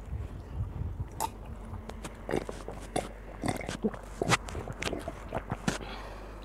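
A person chewing a cream-filled pastry close to the microphone: a string of short, wet mouth clicks and smacks, with a sip of water from a mug partway through.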